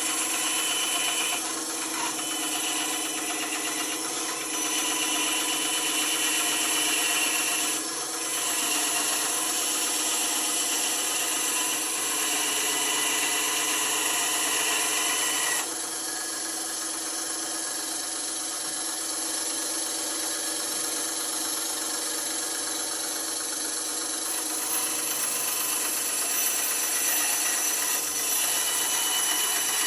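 Bandsaw running with its blade cutting through material: a steady motor hum under a loud rasping hiss. The cutting sound dips briefly about a quarter of the way in and drops to a lower, duller level about halfway.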